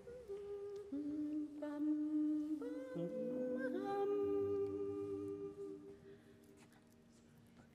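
A cappella vocal group humming held notes, the voices coming in one after another and stacking into a chord, then dying away about six seconds in: the singers taking their starting pitches before the song.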